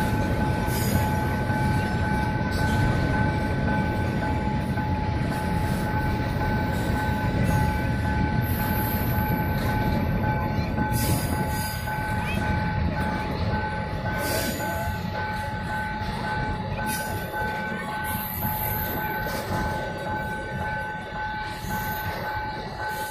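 Freight train of covered hopper wagons rolling past: a steady heavy rumble of wheels on rails, easing a little about halfway. A steady high whine holds over it, with scattered clicks and knocks.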